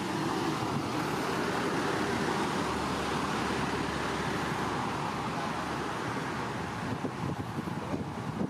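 Steady rushing background noise, an even hiss with a low rumble and no calls, getting slightly choppier near the end.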